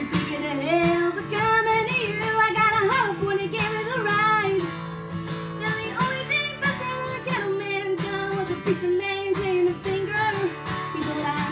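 A teenage girl singing a slow song, accompanying herself on a strummed acoustic guitar.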